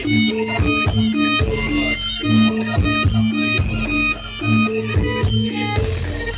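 Loud remix music with a steady beat: a repeating bass line, sharp percussion hits and a shaker-like rattle over pitched instrument notes.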